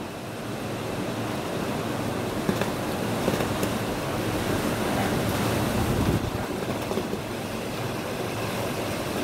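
Typhoon wind gusting, heard from inside a house through a window: a steady rushing that swells to its strongest about six seconds in, then eases, with a few faint knocks near the middle.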